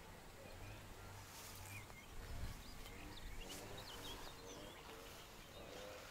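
Faint outdoor ambience with small birds chirping now and then, and a single low bump about two and a half seconds in.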